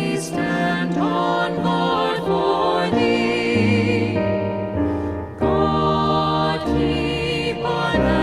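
Background music: sustained choir-like singing over held chords, with a deep bass coming in about three seconds in.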